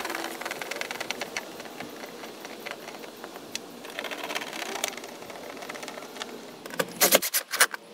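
Self-tapping screws being driven through a plastic splash guard into the wheel-well trim, with a run of fast, even mechanical ticking and a few louder clicks near the end.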